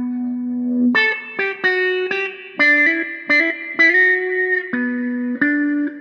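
Electric guitar played through a handmade auto-wah envelope filter pedal: a held note, then from about a second in a run of picked single notes, each pick attack opening the filter with a bright wah. One note slides up into a longer held note before the line drops lower near the end.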